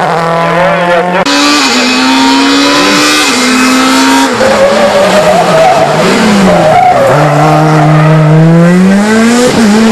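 Rally car engines running hard through several passes, the note stepping in pitch through gear changes, dipping about seven seconds in and then climbing steadily as the car accelerates. Tyres skid on a loose corner.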